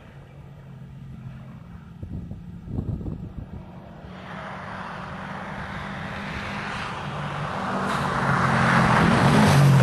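Rally car engine on a gravel stage, growing steadily louder as the car approaches, with a hiss of tyres and gravel building from about four seconds in and loudest near the end.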